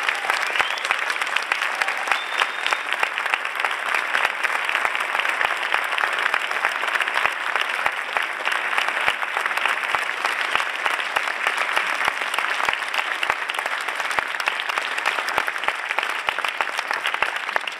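Large cinema audience applauding steadily, a dense mass of clapping.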